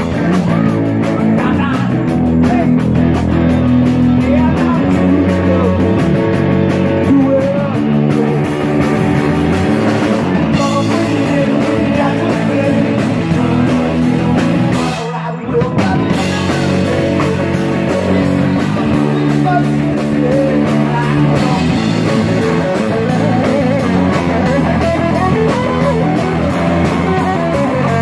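Rock music with guitar, the band playing steadily, with a brief break in the sound about fifteen seconds in.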